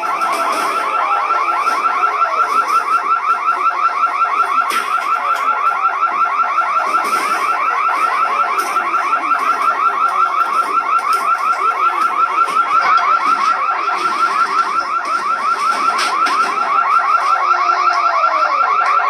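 Electronic alarm sounding without a break in rapid, even pulses of a high tone, about four a second, with fainter voices beneath it.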